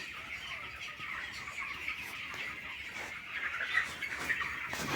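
A flock of chickens clucking and chirping together, a steady dense chatter of many overlapping calls.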